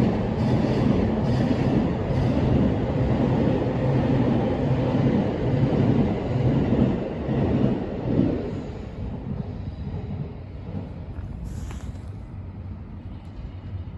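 An electric passenger train running past with a loud rumble of wheels and motors. About eight seconds in the sound falls away quickly as the train enters an underground section.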